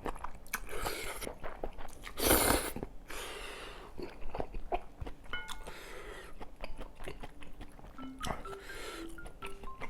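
Close-up eating sounds of kimchi kalguksu noodle soup: wet chewing and several loud, noisy slurps in the first few seconds, then softer chewing and mouth clicks. A few soft stepping music notes come in near the end.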